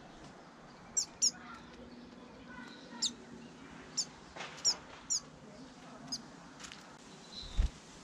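Small garden songbirds giving short, high chirps, each dropping quickly in pitch, about nine scattered through with irregular gaps. A dull low thump near the end.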